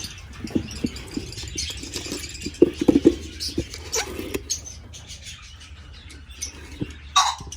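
Small cage birds chirping, with a cluster of knocks and rattles about two and a half to three seconds in as a nest box is handled. One louder, sharper call comes near the end.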